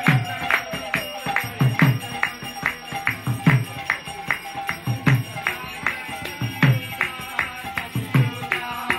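Mridanga drum and karatala hand cymbals playing a steady kirtan rhythm without singing: quick bright cymbal clashes about three or four a second, and a deep bass stroke on the drum about every second and a half that sinks in pitch as it rings.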